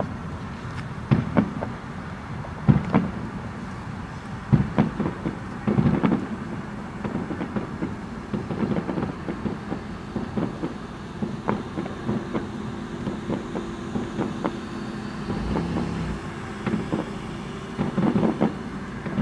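Fireworks going off at a distance: a string of irregular booms and pops, about a dozen over the stretch, over a steady low rumble.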